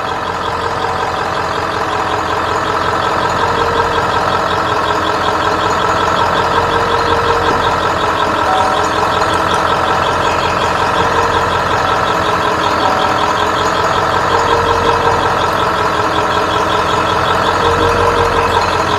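Truck engine idling, a steady mechanical hum with several held tones, heard from inside the cab. It grows slightly louder over the first few seconds.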